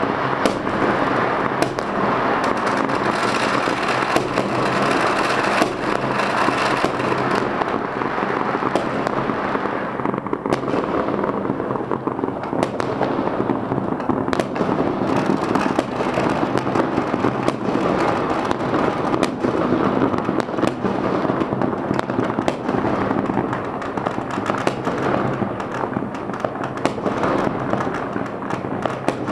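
Fireworks and firecrackers going off all over the city at once: a dense, continuous crackle of countless overlapping bangs and pops that never lets up.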